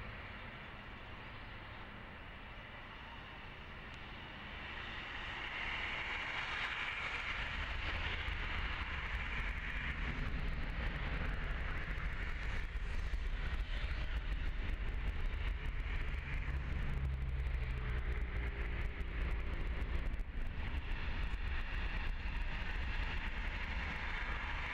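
Boeing 737 turbofan engines running as the airliner lines up on the runway. From about five seconds in the engine noise grows louder and a deep rumble joins it as thrust comes up for the takeoff roll, then holds steady.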